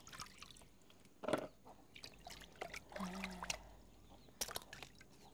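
Water sloshing and splashing in a plastic basin as hands wash soil off freshly pulled cassava roots: a few separate splashes and drips.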